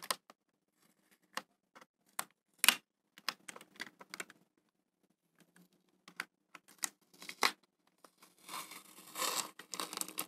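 Paper masking tape being picked at with a fingernail and peeled off a plastic curtain rail: a scattered string of small clicks and scratches, then a longer peeling noise about eight seconds in as the tape comes away.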